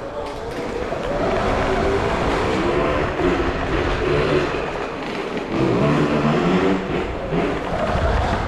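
Electric dirt bike motors whining, the pitch rising and falling as the riders go on and off the throttle.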